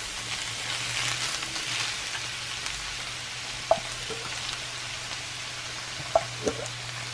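Ground beef and onion sizzling in a skillet while canned tomato sauce is poured over them, over a steady low hum. There are a few short knocks, one a little past halfway and two close together near the end.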